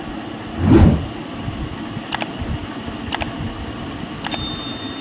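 Handling noises from unboxing a wireless microphone kit: a dull thump about a second in, then a few sharp clicks spaced about a second apart, the last one ringing briefly, over a steady low background rumble.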